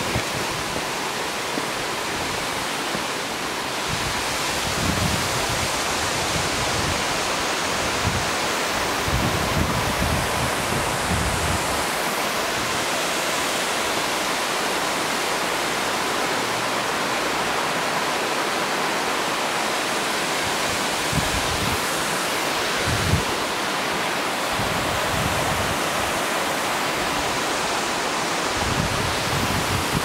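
Steady rushing of a tall waterfall plunging down a rock face. Short low rumbles of wind on the microphone come through every few seconds.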